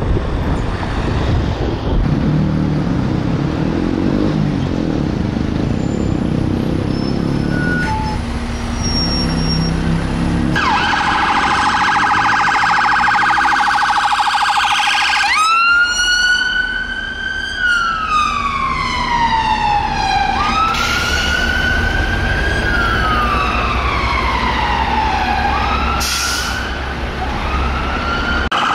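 Siren of a VW Tiguan ambulance response car, coming in suddenly about a third of the way through over traffic noise. It opens with a rapid warble, then changes to a slow wail that rises and falls about every five seconds, and goes back to a fast warble near the end.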